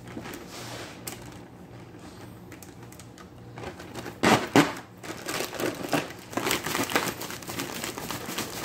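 Clear plastic bag of seasoned cut potatoes and flour crinkling as it is handled and closed, then shaken hard from about four seconds in, a run of loud rustling shakes coating the fries in flour.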